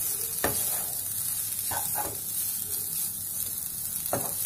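Maggi noodles stir-frying in a non-stick pan with a steady sizzle, as a spatula scrapes and tosses them four times.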